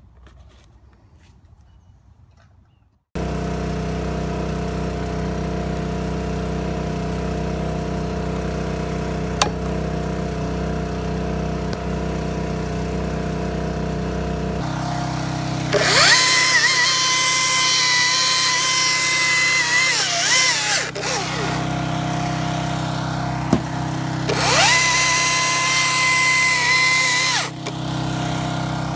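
Steady engine drone from the bucket truck, over which a battery-powered top-handle chainsaw twice spins up to a high, steady whine, the first run about five seconds and the second about three, each winding down as the trigger is released.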